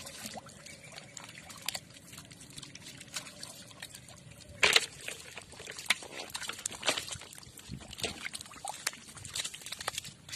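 Water sloshing and trickling, with scattered small clicks and knocks and one loud burst about halfway through.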